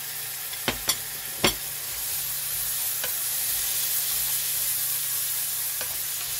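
Egg noodles, beef and mushrooms sizzling steadily in a nonstick frying pan as they are stir-fried. A wooden spatula knocks sharply against the pan three times in the first second and a half, with a couple of lighter taps later.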